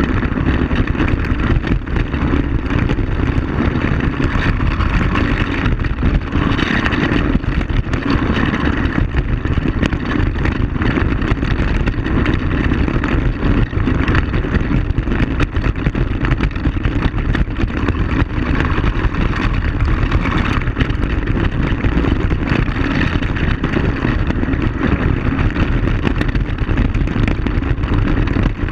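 ATV (quad bike) engine running steadily while riding over a rough gravel track, heard from a camera mounted on the front rack, with constant rumble and knocking from the ride.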